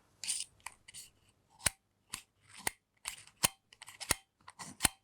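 A string of about a dozen sharp small metallic clicks and taps, some ringing briefly, as parts of a Weller TCP soldering iron are handled and worked apart.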